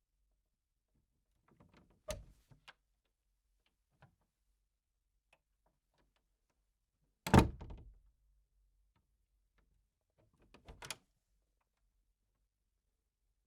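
A glass door being opened and closed: a handle or latch click about two seconds in, a loud thud as it shuts about seven seconds in, and a shorter clatter near eleven seconds.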